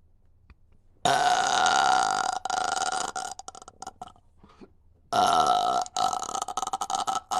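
A woman belching on purpose: two long, loud burps, the first starting about a second in and lasting over two seconds, the second starting about five seconds in.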